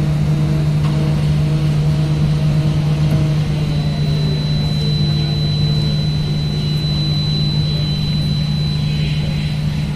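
Heavy construction machinery running with a steady low engine drone, joined by a thin high whine from about four seconds in.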